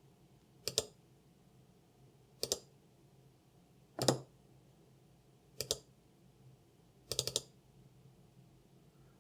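Apple Magic Mouse button clicked: four single clicks about a second and a half apart, each a quick press-and-release pair. Near the end comes a faster cluster of clicks, like a double click.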